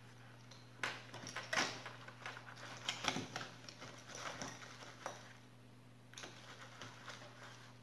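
Light clicks, taps and scraping of small laptop parts being handled by hand during disassembly. The sounds come in irregular bursts from about a second in until near the end.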